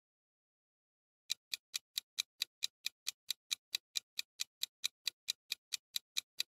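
Countdown timer sound effect: clock-like ticks, about four and a half a second, starting about a second in after silence.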